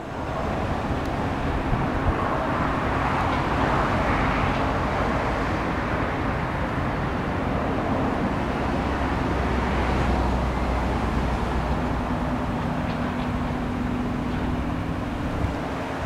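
Steady outdoor din of passing road traffic, a wash of tyre and engine noise that swells as vehicles go by, with a low engine hum in the middle.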